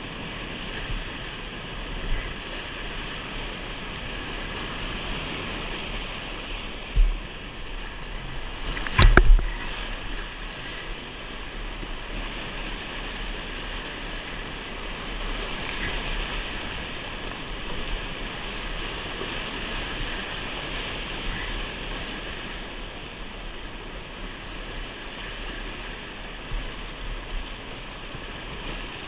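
Whitewater rapid rushing steadily around a kayak, with wind buffeting the microphone. A sharp knock comes about nine seconds in, after a smaller one about two seconds earlier.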